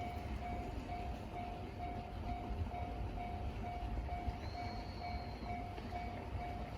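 Japanese railway level-crossing warning bell, the JR standard electronic alarm tone, ringing in a steady repeating ding about twice a second over a low rumble.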